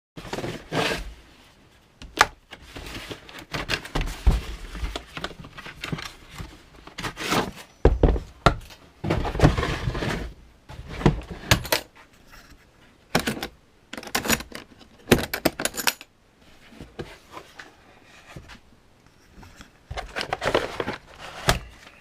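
A cardboard box being opened and unpacked by hand: irregular knocks and clunks of the contents being lifted out, with rustling and scraping of card and plastic packaging.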